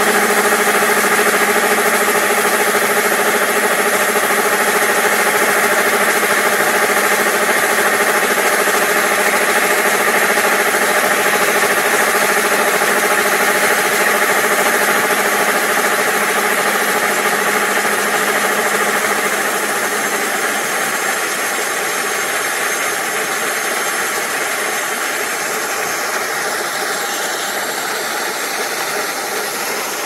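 Kubota ER470 combine harvester's diesel engine running steadily close by, with its grain unloading auger swung out over a truck; the sound eases off a little in the last third.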